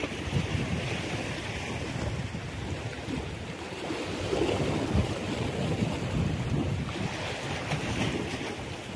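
Wind buffeting the microphone over the steady wash of surf on the rocks.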